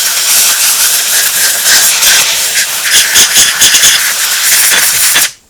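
Compressed air from an air hose nozzle hissing as it blows liquid out of a Johnson Type C carburetor float bowl to dry it. The hiss wavers in strength as the nozzle moves and cuts off abruptly near the end.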